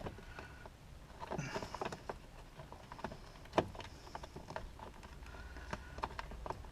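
Light clicks and knocks of the cruise control switch being wiggled and pulled against its retaining tabs in the steering wheel, with one sharper click a little past halfway.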